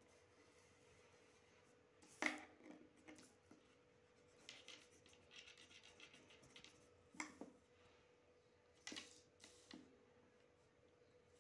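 Quiet scratching and rubbing of a pencil compass and hands on a sheet of paper on a wooden desk, broken by a few sharp taps, the loudest about two seconds in. A faint steady hum lies underneath.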